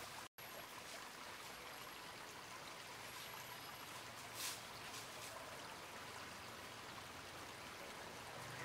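Steady, fairly quiet hiss of outdoor background noise, cut by a split-second dropout just after the start, with a brief crackle about four and a half seconds in.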